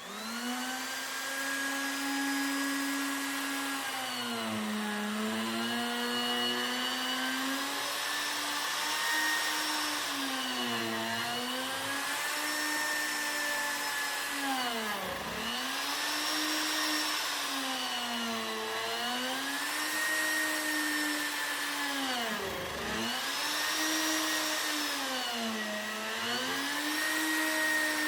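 Router starting up and then flattening a warped white oak slab. Its high motor whine keeps sagging in pitch and recovering, roughly every two to three seconds, as the bit bites into the wood on each pass. There are two deeper drops where it bogs down harder.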